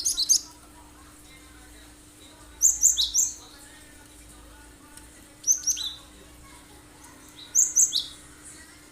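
A cinereous tit (gelatik batu) sings short bursts of sharp, high, quickly falling notes. It gives four phrases about two and a half seconds apart.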